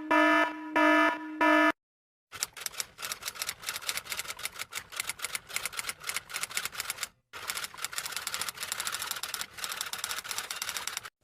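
A few short electronic beeps, then a sound effect of rapid typewriter typing: fast, irregular key clacks with one brief pause about halfway through.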